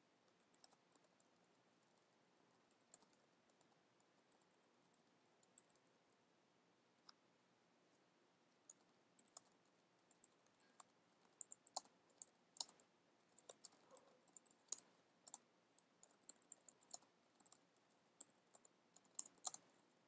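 Faint clicks of typing on a computer keyboard, irregular keystrokes that are sparse at first and come quicker from about eight seconds in.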